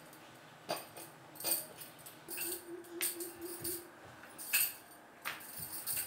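Stacks of bangles jingling and clinking on the wrists in irregular bursts, along with a wooden rolling pin rolling chapati dough on a wooden block.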